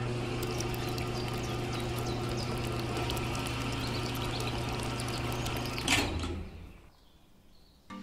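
Small electric motor of a homemade miniature concrete mixer running with a steady hum, turning its can drum with the mix churning inside. About six seconds in it is switched off and winds down to quiet.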